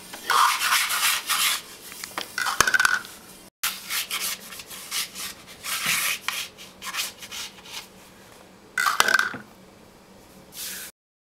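A large round metal pan being slid and rubbed against a wooden countertop by a child's hands, in a run of short, irregular scraping strokes with now and then a brief metallic ring.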